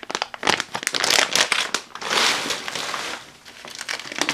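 Packaging crinkling and rustling in irregular crackles as bagged ingredients are handled and pulled from a shipping box, easing off briefly before more crinkling near the end.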